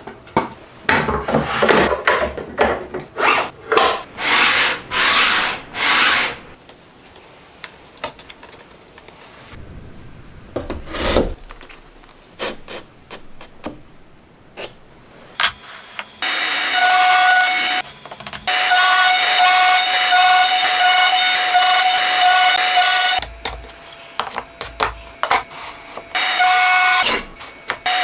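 Wood being worked by hand in repeated rubbing, saw-like strokes, then scattered knocks and handling. From about halfway through, a power tool runs with a steady high whine, stopping for a few seconds and starting again near the end.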